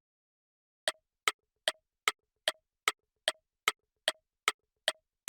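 A steady ticking sound effect, like a clock counting down thinking time, with sharp even ticks at about two and a half a second, starting about a second in.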